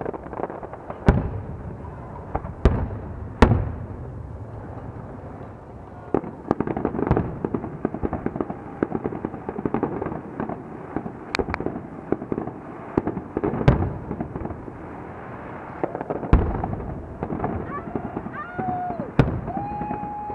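Fireworks display: aerial shells bursting with sharp booms every one to three seconds, and from about six seconds in a dense, continuous crackling from crackle effects between the booms.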